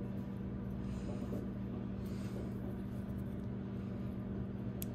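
A steady low hum runs throughout, under faint fiddling sounds of small metal parts of a folding knife handled by fingers. A single light click comes near the end.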